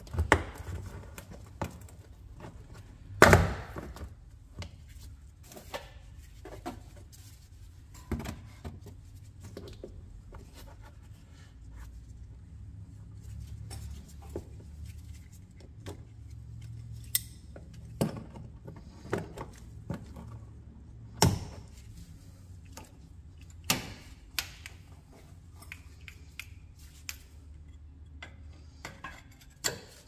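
Metal hand tools and parts being handled: scattered clinks and knocks at irregular intervals, the sharpest about three seconds in, over a low steady hum.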